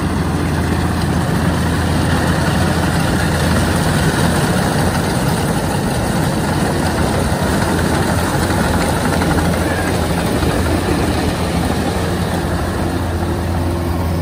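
Kubota DC-105X combine harvester working a rice crop, its diesel engine and threshing machinery running steadily under load: a constant low drone with a dense rushing noise over it.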